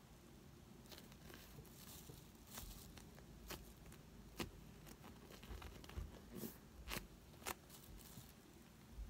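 Faint scattered clicks and rustles of hands gripping and squeezing a large foam ice-cream-cone squishy toy, about eight small sounds over the stretch.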